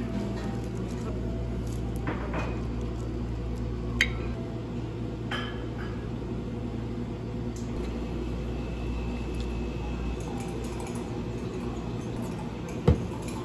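Plating food on a ceramic plate: a plastic-gloved hand rustling as it sets down tomato slices, and a few light clinks of a small stainless sauce cup and utensils against the plate, with a louder knock near the end. A steady low hum runs underneath.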